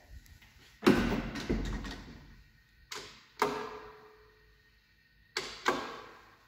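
Wooden swing landing door of a 1965 KONE traction elevator and its latch banging and clunking: three pairs of loud knocks, the first the loudest, each dying away with a short ring.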